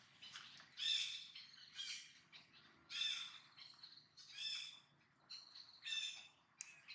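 About five short, harsh animal calls, spaced roughly a second apart, over a faint outdoor background.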